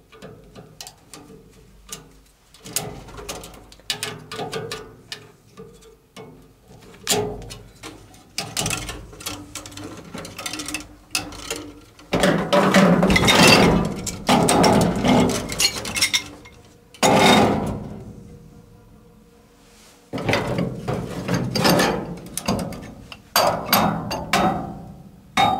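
Metal knocks, clanks and scraping from a pipe wrench working on an old gas furnace's burner gas piping, disconnecting it after the gas is shut off. Scattered sharp knocks, with longer stretches of grating metal noise about halfway through and again near the end.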